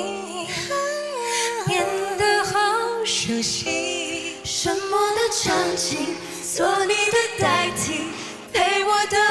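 Women singing a slow Mandarin pop ballad, voices with vibrato layered over a soft sustained backing.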